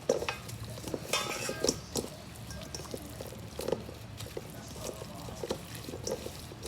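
Raw ribeye steak being massaged by hand with wet seasoning: irregular squishes and squelches, a few sharper ones in the first two seconds.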